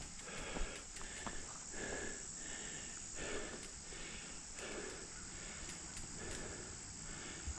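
Mountain biker breathing hard in quick, even breaths, over steady hiss and a few light knocks from the bike on the trail.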